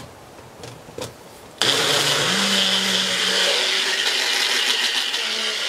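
Personal single-serve blender: a few clicks as the cup is fitted onto the motor base, then about a second and a half in the motor starts and runs steadily, its pitch stepping up slightly as it comes up to speed, blending a thick, creamy sauce.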